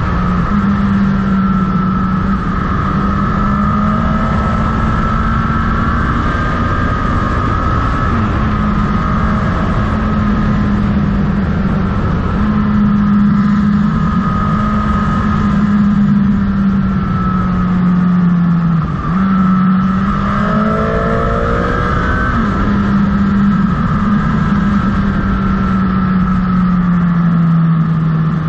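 Motorcycle engine running steadily at cruising speed under a dense rush of wind and road noise. Its pitch dips briefly and recovers about two-thirds of the way in, then falls slightly near the end.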